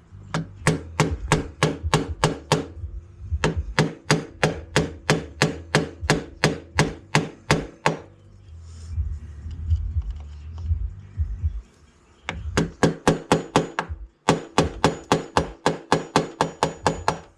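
Hammer blows on a motorcycle drive chain, metal on metal, struck rapidly at about four a second in several runs with short pauses. The blows work a ground-down rivet and side plate loose so the link will come off.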